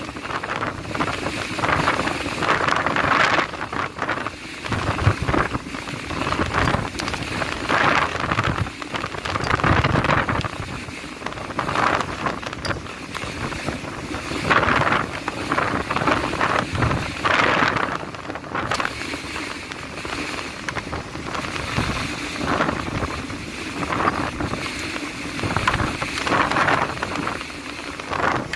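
Gale-force wind, Beaufort force 8 to 9, buffeting the microphone in irregular gusts that swell and fade every second or two.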